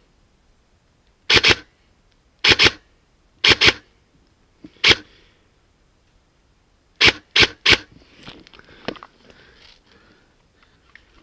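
Airsoft electric rifle firing sharp single shots: three quick pairs about a second apart, one single shot, then a fast triple, followed by faint rustling.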